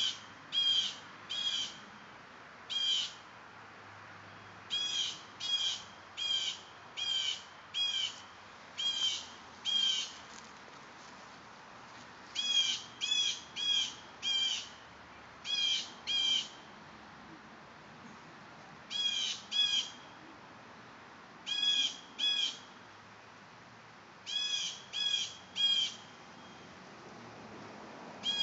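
Short, high-pitched animal calls, each about a quarter second long, repeated over and over in quick groups of two to four with pauses of a second or two between groups.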